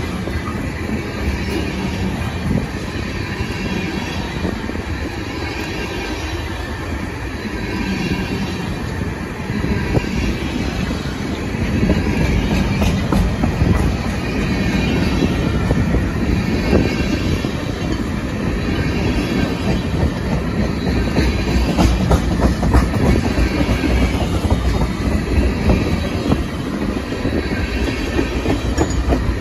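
Loaded freight train of tank cars rolling past close by, steel wheels clacking rhythmically over the rail joints under a steady rumble, a little louder from about twelve seconds in.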